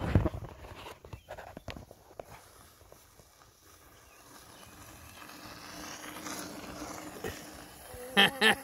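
Electric unicycle's hub motor giving a faint, rising whine as it rides close past, over scattered light clicks and a low thump at the start. Just before the end come a few short, loud, wavering vocal cries.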